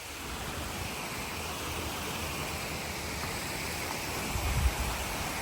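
Small creek waterfall splashing steadily, an even rushing sound that grows a little louder over the first couple of seconds. A few low rumbles come near the end.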